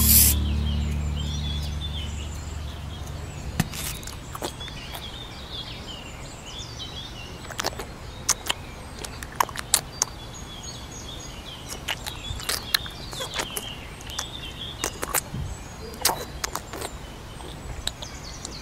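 Birds chirping, with scattered sharp clicks and taps and a low steady rumble underneath; the tail of music fades out at the start.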